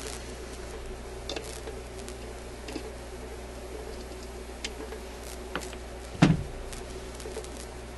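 Small metallic clicks and taps of hands and a tool working the record-changer mechanism of an Admiral suitcase record player, whose metal parts are stiff and not moving freely. One louder knock about six seconds in, over a steady low hum.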